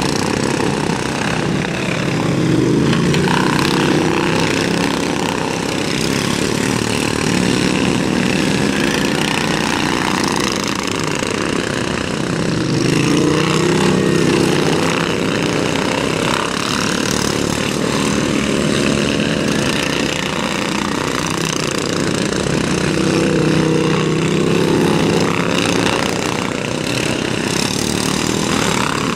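Several racing lawn mowers' small Briggs & Stratton engines running hard together, their pitches rising and falling as they rev through the turns. The pack swells louder about every ten seconds as it passes.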